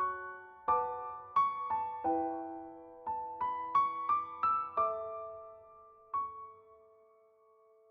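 Background music: a soft piano melody of struck notes, several chords decaying, thinning out to a single fading note near the end.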